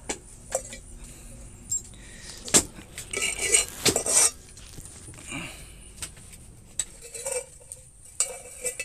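Light metal utensils, aluminium spoons and a pot, clinking and clattering as they are picked up and knocked together. The knocks are scattered sharp clinks, with a busier run of them about three to four seconds in.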